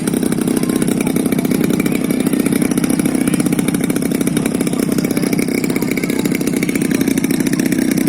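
Engine of an Extra 300 radio-controlled aerobatic model plane running at a steady pitch, with a chainsaw-like buzz.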